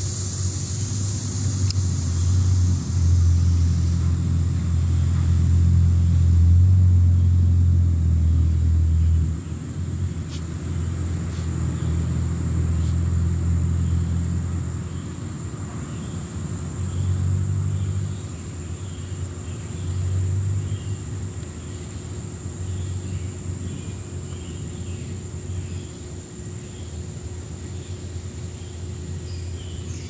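A low rumble, loudest for the first nine seconds or so, swelling briefly twice more and then dying down. Under it runs a steady high insect drone.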